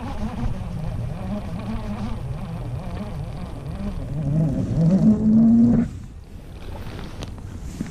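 Baitcasting reel cranked during a lure retrieve, its gears whirring in a pitch that wavers with the cranking speed. The whir climbs and gets louder as the reeling speeds up, then stops suddenly about six seconds in.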